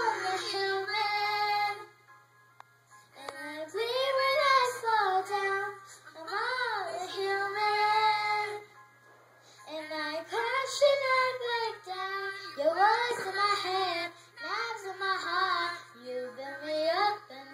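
A young girl singing solo and unaccompanied, in held phrases broken by short pauses.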